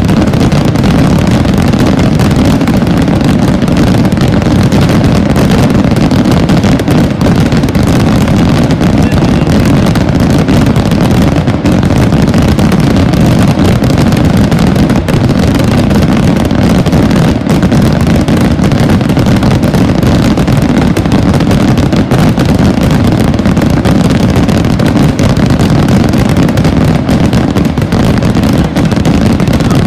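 Massed barrage of firework rockets (voladores) bursting in the air and over the hillside, thousands of bangs running together into one continuous, very loud din without a break.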